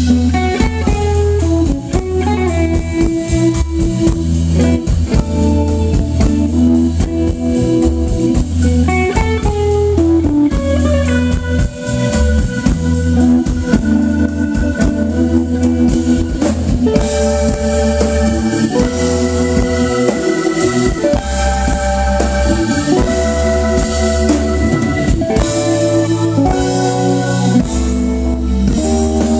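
A live band playing an instrumental number: a Telecaster-style electric guitar, a drum kit and a keyboard holding sustained chords over a steady beat.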